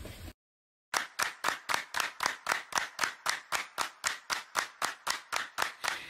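Sharp claps in a steady, even beat, about four a second. They start about a second in, after a moment of dead silence.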